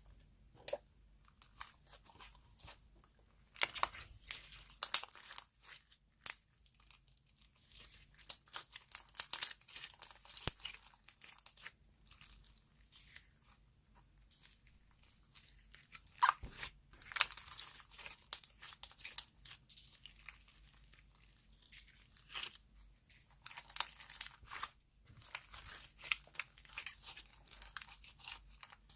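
Soft clay slime being worked, giving dense crackling and tearing sounds made of many small sharp pops. They come in several runs of a few seconds each, with short quiet pauses between.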